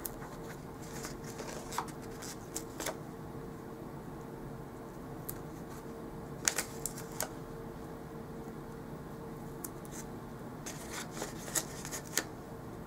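Paper planner stickers being handled, peeled off their sheet and pressed onto the planner's pages: scattered soft rustles and small taps, the sharpest about six and a half seconds in, over a steady faint hum.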